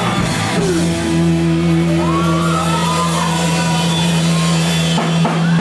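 Live rock band: electric guitars and bass hold a loud ringing chord for several seconds, with a voice shouting over it in sliding pitches.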